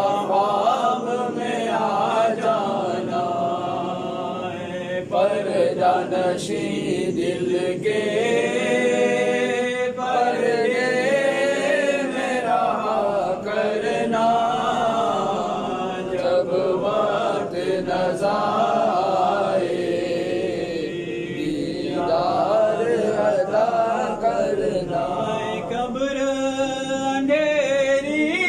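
Men chanting an Urdu devotional salam to the Prophet Muhammad, unaccompanied and melodic, in long drawn-out phrases.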